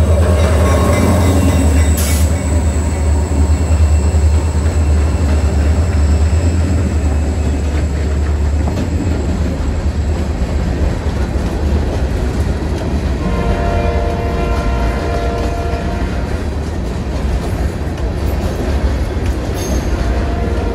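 Diesel freight locomotive passing close by with a heavy, steady low rumble, followed by loaded covered hopper cars rolling past with a continuous rumble of steel wheels on rail. A faint steady whine joins in about two-thirds through.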